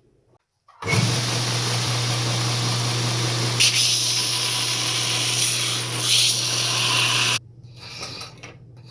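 Power grinder running and grinding a 1084 steel knife spring to shape: a steady motor hum under a harsh grinding hiss that turns brighter about three and a half seconds in. It starts about a second in and cuts off abruptly near the end.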